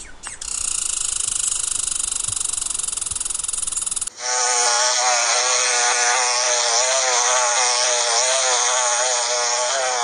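A high, rapid buzzing or rattling for about four seconds, cut off abruptly and replaced by a wasp's buzzing drone whose pitch wavers up and down.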